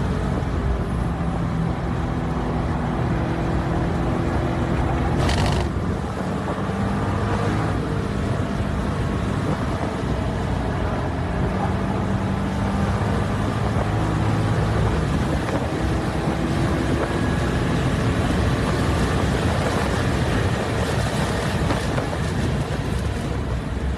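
Chevrolet Corvette C6 Grand Sport's 6.2-litre LS3 V8 running hard, its pitch rising and falling as it revs and shifts, over a steady rushing noise. A brief sharp sound comes about five seconds in.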